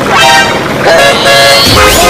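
Vehicle horn honking in two long blasts, with music.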